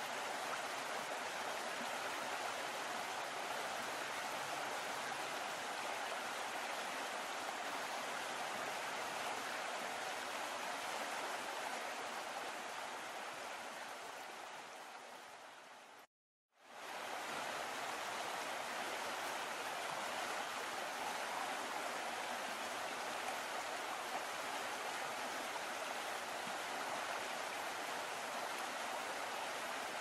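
Water rushing and splashing steadily in a boat's wake. It fades down about twelve seconds in, cuts out for a moment, then comes back at the same level.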